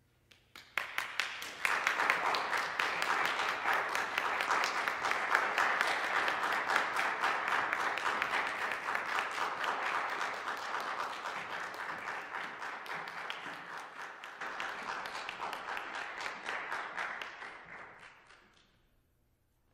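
Audience applauding: dense clapping that starts just under a second in, builds within a second, holds, then dies away near the end.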